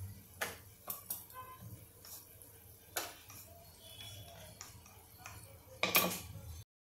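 Wooden rolling pin knocking and rolling on a wooden board as dough is rolled out, giving a few scattered knocks and clicks. The loudest knock comes near the end.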